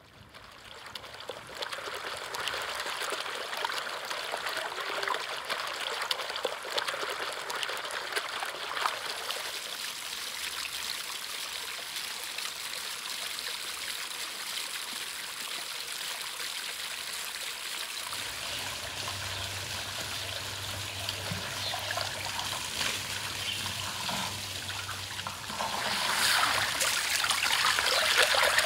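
Water running down a fountain of wet stones: a steady trickling and splashing that fades in at the start. Near the end it grows louder as a jet of water splashes onto a raw lamb carcass lying on a stone slab.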